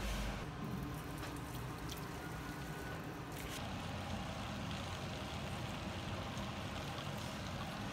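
Water boiling hard in a stainless steel pot, its low rumble cutting off about half a second in. After that, a steady hiss with a few faint clicks.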